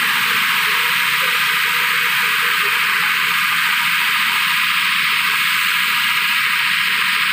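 Loud, steady hissing noise played through a large outdoor DJ speaker system as it is tested, with the middle tones missing.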